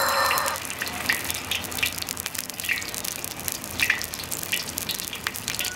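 Hairtail pieces shallow-frying in hot oil in an iron wok: a steady sizzle full of small pops and crackles. It is busier in the first half-second, as another piece goes into the oil.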